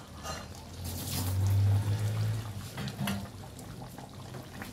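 Curry gravy simmering and bubbling in a wok over a gas flame, with a few light clicks. A low rumble swells about a second in and fades by about two and a half seconds.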